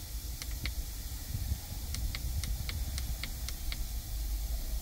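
Short plastic clicks from the dashboard in a 2021 Mercedes GLA cabin: two clicks, then about two seconds in a run of eight evenly spaced clicks at about four a second, alternating higher and lower. A steady hiss runs underneath.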